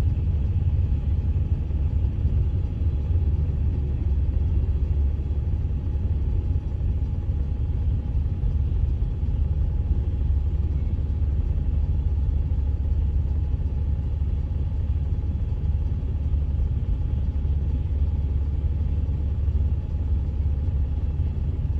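Freight train of tank cars rolling steadily past a level crossing, heard from inside a stopped car as an unbroken low rumble.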